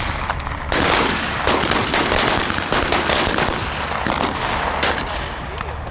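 Shotguns firing at pheasants: several shots over a few seconds, each followed by a long trailing echo.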